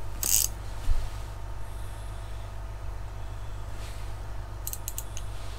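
Steady low hum with faint steady tones above it, a brief hiss about a quarter second in, a single knock about a second in, and a quick run of sharp clicks near the end.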